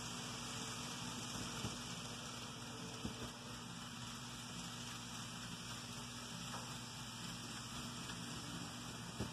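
Model Amtrak passenger train running along the layout track: a steady whirring hiss with a low hum, and a few faint clicks from the wheels on the rails.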